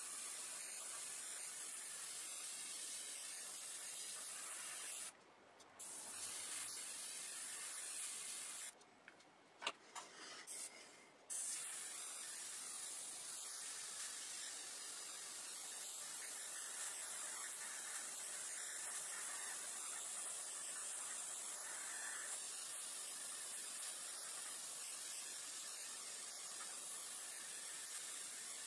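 Gravity-feed airbrush spraying paint with a steady hiss of air. The hiss cuts out briefly about five seconds in, then again for a couple of seconds around nine to eleven seconds with a click or two, as the trigger is let go, and then resumes.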